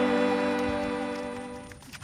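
Background music of sustained, held chords that fade out near the end.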